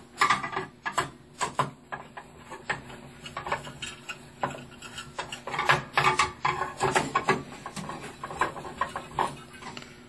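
Irregular small clicks, taps and rattles of plastic and metal as the heatsink and its plastic fan shroud are handled and seated inside a Dell OptiPlex 380 desktop case.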